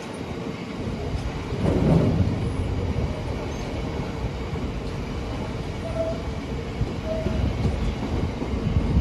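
Empty open box wagons of a stone train rolling past at low speed, their wheels rumbling and clattering over the track, with two short squeals from the wheels in the second half.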